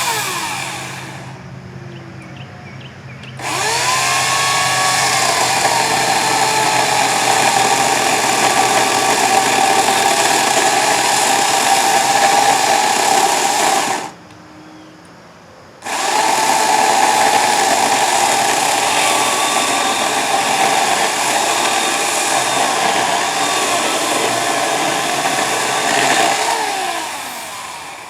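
Portland electric chainsaw running: a brief burst at the start, then two long runs of about ten seconds each with a short gap between, the motor winding up as each run starts and spinning down as it ends.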